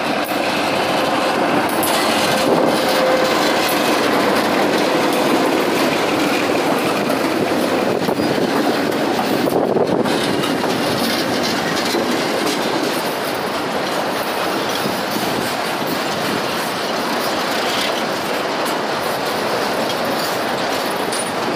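Loaded diesel freight train passing close by: the locomotive goes past about ten seconds in, followed by a long line of boxcars. Steady, loud noise of steel wheels rolling and clattering over the rail joints.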